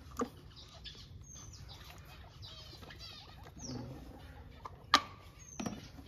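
Small birds chirping, with short high falling chirps now and then and a quick run of chirps midway. There are also a few sharp clicks, the loudest a sharp knock about five seconds in.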